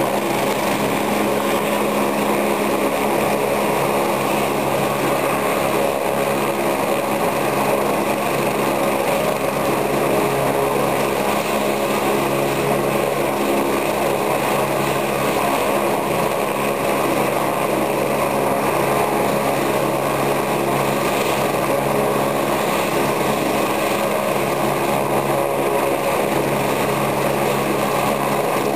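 Helicopter running on the ground, a steady, unbroken engine and rotor sound.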